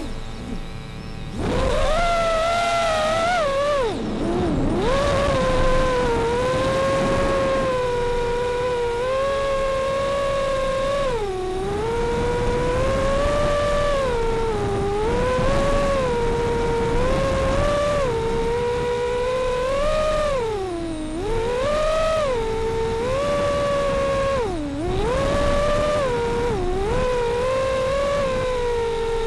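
Brushless Xing motors and propellers of a Martian 220 FPV racing quadcopter whining in flight, the pitch swooping down and back up again and again as the throttle is cut and reapplied through turns. A rougher, broken stretch comes about a second in, and the pitch drops furthest about five seconds in.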